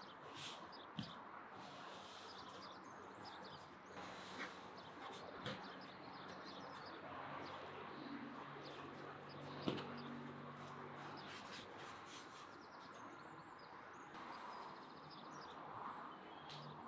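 Quiet steady background noise with a few scattered small clicks and knocks, the sharpest a little before halfway through the second half, and faint bird chirps.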